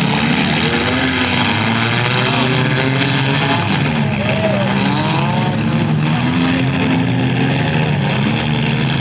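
Several compact-car demolition derby engines running at once and revving, their pitches rising and falling over and over.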